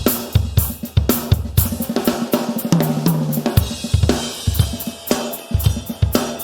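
Acoustic drum kit played as a continuous groove: steady kick drum and snare hits under hi-hat and cymbal wash, with a couple of lower pitched drum hits, likely toms, about three seconds in.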